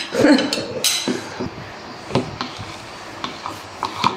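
A metal spoon stirring milk in a plastic measuring jug, with scattered light clinks and scrapes against the jug's sides.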